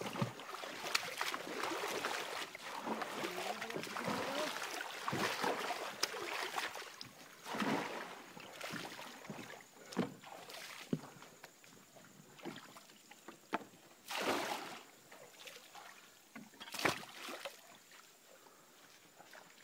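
Water sloshing and trickling around a small boat moving along a shallow creek, with a few separate splashes and knocks from the boat being worked along, the strongest about midway and near the end.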